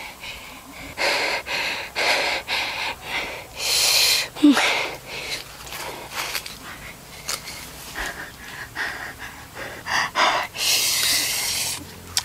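A man breathing heavily: a string of loud, rasping breaths in and out, with a short voiced sound about four and a half seconds in.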